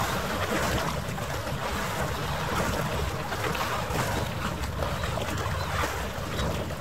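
Steady wind rumble on the microphone with harbour water washing, played back about three times faster than real time.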